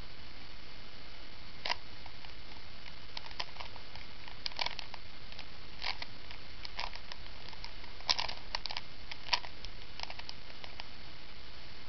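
Irregular clicks and clacks of a Rubik's Cube's plastic layers being turned by hand, sparse and uneven, with the sharpest clacks about two-thirds of the way in, over a steady hiss.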